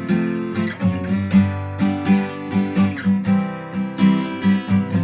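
Acoustic guitar strumming and picking chords in a steady rhythm, an instrumental lead-in to a song.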